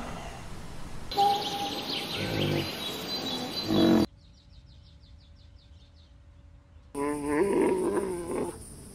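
Outdoor wildlife sounds: birds chirping with low animal grunts, then a quiet stretch with faint high insect-like ticking, then a loud wavering call near the end.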